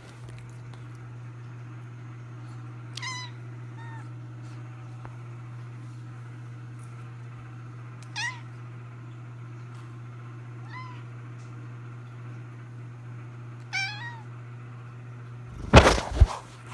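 A domestic cat meowing about five times, short high calls a few seconds apart, over a steady low hum. Near the end come a few loud knocks or bumps, louder than the meows.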